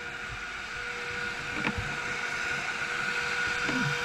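A machine running steadily, engine-like, with a constant hum under a hiss that grows slowly louder, and one sharp click about one and a half seconds in.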